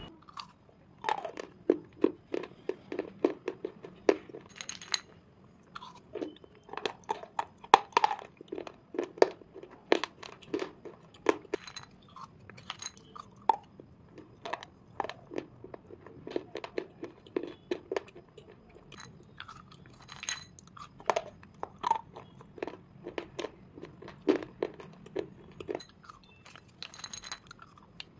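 Sharp, irregular crunches of a person biting and chewing brittle edible slate pencil and clay pieces close to the microphone, coming in quick runs with short pauses between them.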